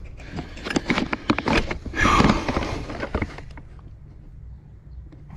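Handling noise: a quick run of clicks and knocks for about three seconds, then only a low steady rumble.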